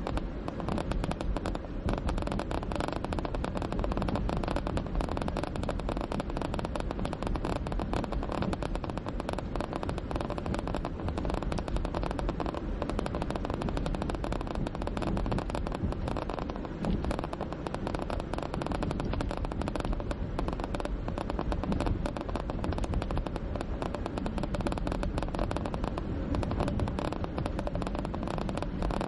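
Car driving over rough, cracked and patched asphalt, heard from inside the cabin: a steady low rumble of tyre and road noise with a dense, rapid crackle.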